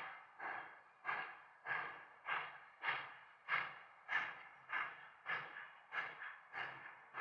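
Virginia & Truckee 4-6-0 steam locomotive No. 25 working slowly, its exhaust chuffing in an even rhythm of about three chuffs every two seconds, each sharp at the start and fading away.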